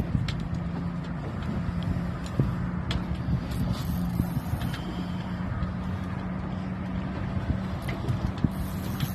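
Steady low mechanical hum, like a motor running, with a few light clicks and knocks scattered through it.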